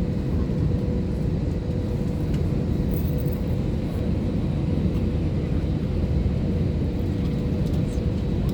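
Steady cabin noise inside an airliner with its engines running before takeoff: an even low rumble with a thin, steady hum above it.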